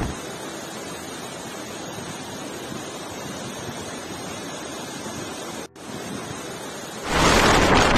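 Steady rushing noise of storm water across a flooded street, broken off for an instant about six seconds in. A second before the end, a much louder rush of wind and surf cuts in.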